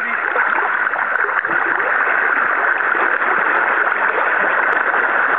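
Steady rushing of river current, an even hiss with no changes.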